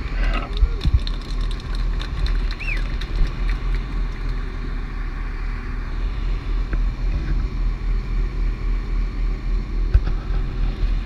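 Jet boat engine running steadily at low speed: a deep, continuous note with a slightly pulsing level.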